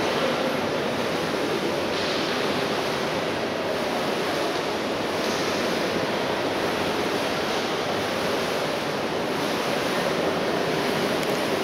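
Steady wash of noise from swimmers splashing through a breaststroke race in an indoor pool, with brief brighter, hissier swells about two seconds and five seconds in.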